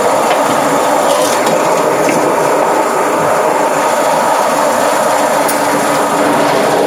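Volvo semi truck's diesel engine idling, heard as a loud, steady mechanical noise close to the back of the cab.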